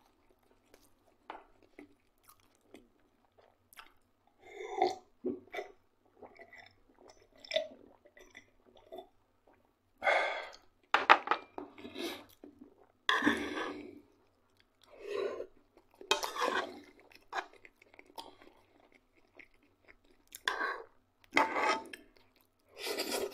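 Close-up chewing of fried potatoes and black bread: wet mouth sounds in irregular bursts, with short quieter gaps between mouthfuls.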